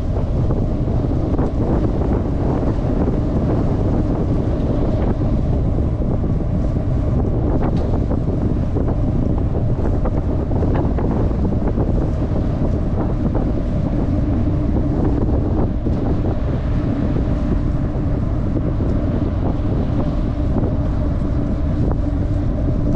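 Strong wind buffeting the microphone: a steady, loud rumbling rush.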